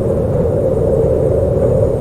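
Howling wind: a steady, loud rush with a low rumble beneath a constant moaning tone.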